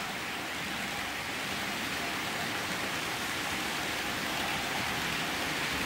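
OO gauge model trains running on the layout's track, a steady even noise with no clear tone.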